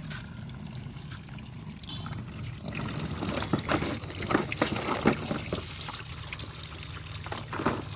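Water from a pump pouring and splashing over muddy toy vehicles as they are washed, with irregular splashes that grow louder and busier about three seconds in.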